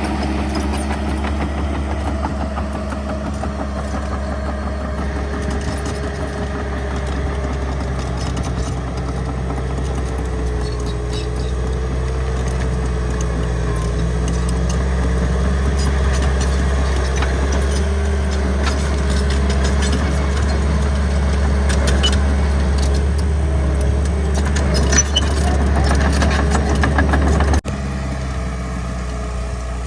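Bulldozer's diesel engine running steadily, its pitch wavering slightly, with metallic clicks and rattles building toward the end. The sound changes abruptly near the end.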